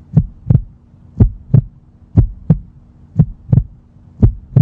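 Heartbeat sound effect: a steady lub-dub, five double thumps about one a second, over a low steady hum.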